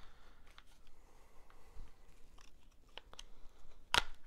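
Parts of an IWI X95 rifle being worked apart by hand: faint scraping and small clicks of polymer and metal, with one sharp click about four seconds in.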